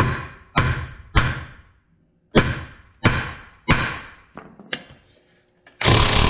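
About eight sharp metal-on-metal hammer blows on a ball joint press clamped over a Ford Explorer's ball joint, each ringing briefly, the last two lighter: shock blows to vibrate a stuck ball joint loose while the press is under load. Near the end an impact wrench starts running steadily on the press screw.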